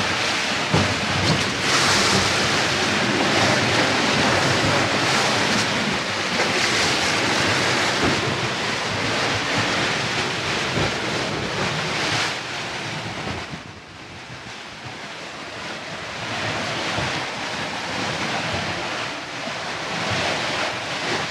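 Wind buffeting the microphone over the rush of open sea around a sailing catamaran under way. The noise is steady and fairly loud. It dips about two-thirds of the way through, then builds again.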